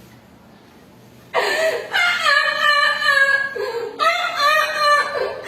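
A person's voice imitating an animal call: a string of high-pitched, drawn-out vocal cries with wavering pitch, starting about a second in.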